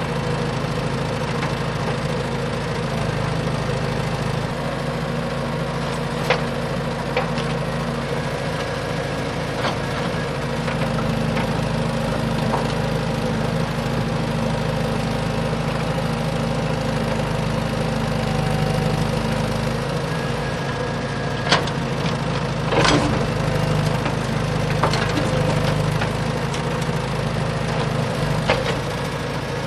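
A small motor or engine running steadily at an even pitch, with a few sharp clicks or knocks, the loudest of them in the second half.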